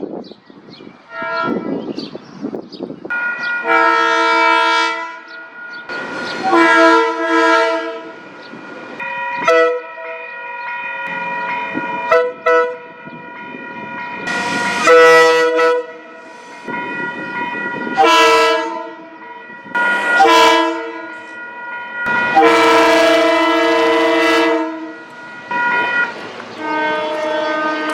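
Train horns sounding a series of about ten blasts, short and long, each a chord of several steady tones at once. Running-train rail noise fills the gaps between blasts.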